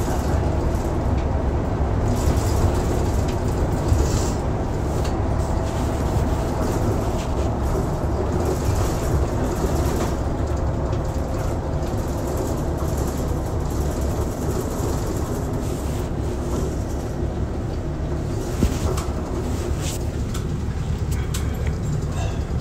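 Ofunato Line BRT bus running, heard from inside: a steady low engine and road rumble with a couple of brief knocks or rattles.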